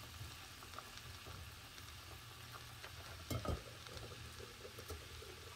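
Faint steady sizzling of food cooking on the stove, with small ticks and a single knock about three and a half seconds in.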